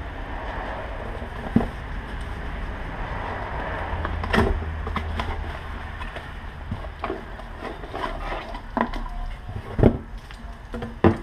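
A small cardboard box being opened and a wiring harness lifted out of it: rustling of cardboard and wiring with several sharp knocks, the loudest near the end, over a low steady rumble.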